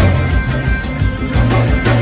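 Live rock band playing: a walking bass line under drum hits, with electric guitar.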